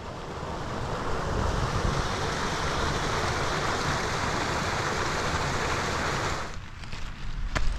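Steady rush of flowing water from a stream channel, cutting off about six and a half seconds in; a few footsteps on a gravel path follow near the end.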